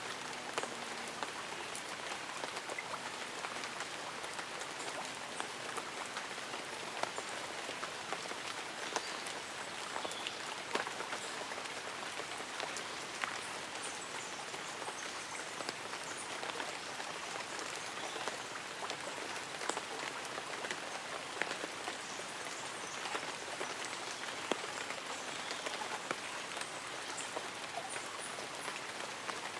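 Light rain falling on tree leaves and an umbrella: a steady hiss of drizzle with many small, irregular drop taps.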